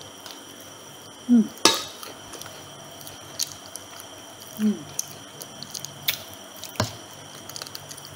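Close-up eating sounds: chewing with wet, drip-like mouth smacks every few seconds and a few sharp clicks, over a faint steady high hum.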